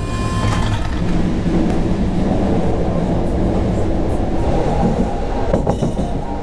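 Suburban electric train running, heard from inside the carriage: a steady rumble of wheels on the rails, with a few clicks about five and a half seconds in.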